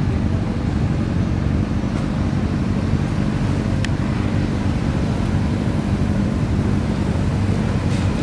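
A convoy of cruiser motorcycles riding slowly past in a column, their engines rumbling steadily together.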